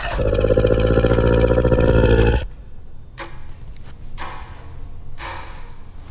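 A loud, rough, low creature roar lasting about two and a half seconds that cuts off suddenly, followed by quieter short rough growl-like sounds about once a second.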